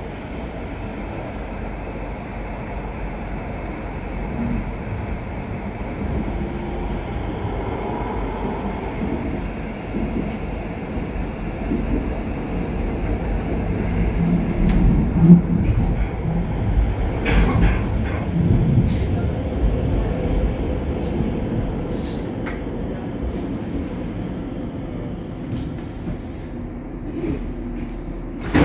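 U-Bahn subway train running, heard from inside the carriage: a steady low rumble of wheels on track that grows louder about halfway through, with scattered clicks.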